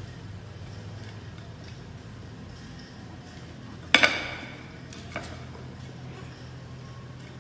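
A single sharp clink with a brief ring about four seconds in, then a lighter click about a second later, over a steady low hum.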